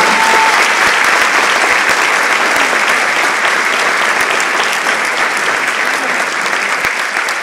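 Large audience applauding steadily, a dense patter of many hands clapping that eases slightly toward the end.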